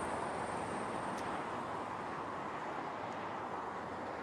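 Steady rushing background noise that starts abruptly, with a faint high whine in the first couple of seconds.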